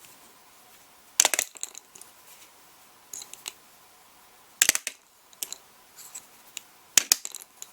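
Hard plastic clicks and clacks from the flip-down plates of a small electronic shooting target being knocked over. They come in three short clusters, about a second in, near the middle and near the end, with a few fainter ticks in between.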